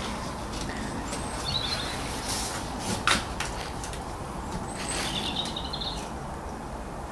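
Front brake caliper on a Mercedes W204 C-Class being levered back with a screwdriver braced on the disc to push the piston into its bore: scraping and creaking, with one sharp metallic click about three seconds in. A bird chirps twice in the background.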